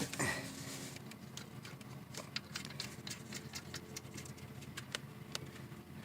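Faint, irregular small clicks and ticks of a plastic cap being fitted and screwed onto the AC low-side service port.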